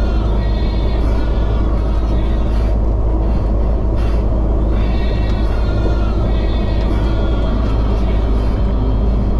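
Steady, loud low rumble of a vehicle driving at highway speed, heard from inside the cab, with road and engine noise. A higher-pitched sound comes and goes every few seconds over it.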